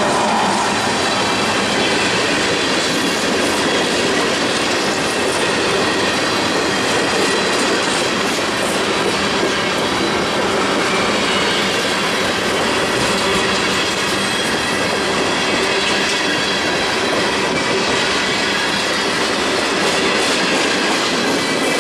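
Freight cars, mostly tank cars, rolling past close by: steel wheels rumbling and clacking over the rail without a break, with a faint thin wheel squeal.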